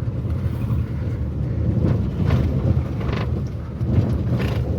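Inside the cabin of a 2012 Maruti Suzuki WagonR on the move: a steady low road and engine rumble with a few light knocks and rattles from the body. The owner puts the rattling down to the car's age and years on rough roads.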